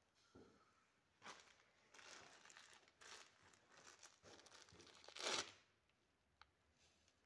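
Faint, irregular crinkling and rustling of a shiny wrapper being handled in gloved hands, with a louder crackle about five seconds in.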